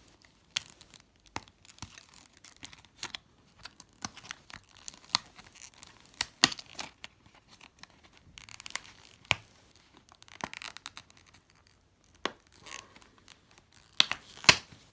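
Tool packaging being torn open and handled, with scattered sharp clicks and taps, and a stretch of rustling and tearing about two-thirds of the way through.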